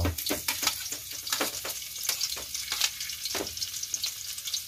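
Chopped garlic sizzling in hot cooking oil in a wok, with repeated scrapes and clinks of a metal ladle stirring it against the pan.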